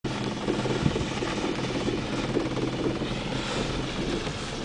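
Mitsubishi L200 pickup's engine running steadily while it tows a snowboarder on a rope, a low hum under the noise of tyres on a snowy road.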